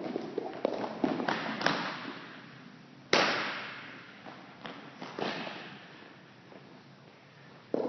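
Footsteps and shoe scuffs on a hardwood gym floor during a baseball fielding drill. About three seconds in there is one loud, sharp smack that echoes through the gym, then a few lighter knocks.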